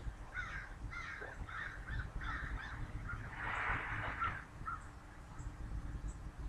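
Crows cawing in a run of short, harsh calls, about two a second, with a louder, longer caw a little past halfway. A low steady rumble runs underneath.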